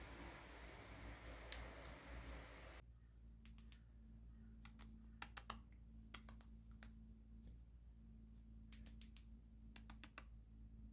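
Near silence broken by faint, irregular small clicks and taps, some in quick runs of two or three.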